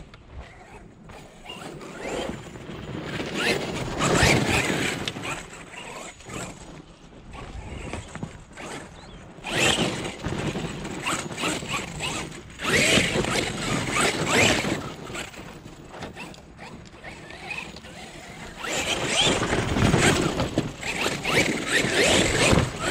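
HoBao Hyper MT Plus II brushless electric RC monster truck driving hard over a dirt track, its motor and drivetrain whining as the tires churn and throw dirt and gravel. It comes and goes in four louder passes, with quieter stretches between.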